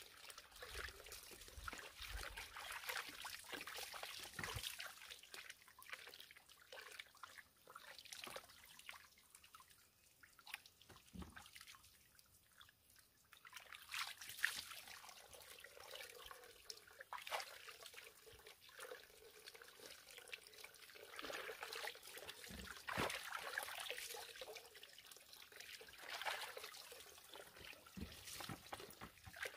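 Water trickling from a hose pipe into a plastic basin of water, with small splashes and drips as fruit is rinsed by hand. It runs faint, with a quieter spell around the middle.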